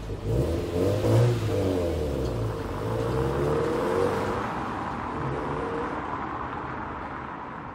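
Subaru WRX STI's turbocharged EJ20 flat-four, fitted with a full-titanium competition exhaust, revs up twice in the first second or so and then pulls away. Its exhaust note steadily fades as the car drives off.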